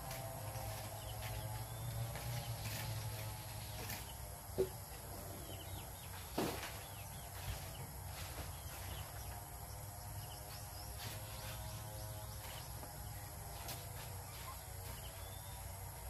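Outdoor rural ambience: faint bird chirps over a steady low hum, with two short knocks, one about four and a half seconds in and one about six and a half seconds in.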